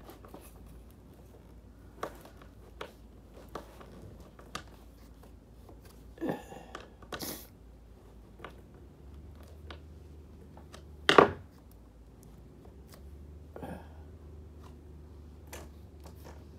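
Hands working a plastic snowboard binding and its strap hardware: scattered clicks, knocks and rustles, with a louder clatter about eleven seconds in.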